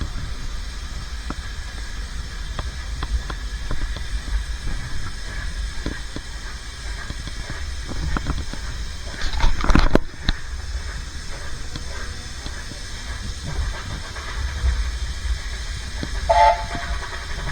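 Narrow-gauge steam train of the Welsh Highland Railway, hauled by Garratt No.87, running along the line: a steady low rumble with scattered clicks from the wheels on the track. About halfway through comes a loud rush of noise lasting about a second, and near the end a brief pitched sound.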